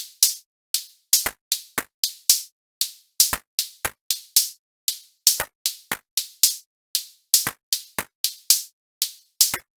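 Drum-machine beat of sharp, crisp hits, about two to three a second, some with a deep thump beneath, with no melody; it stops at the very end.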